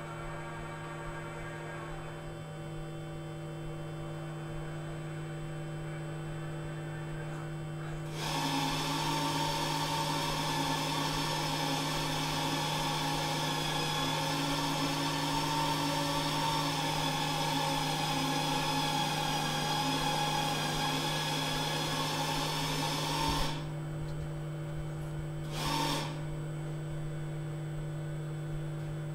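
Motor drives of a particle-therapy treatment room's robotic X-ray imaging arm running, a steady whine with several fixed tones that starts about eight seconds in and cuts off sharply some fifteen seconds later, with a short whirr shortly after. A steady electrical hum from the room's equipment lies beneath.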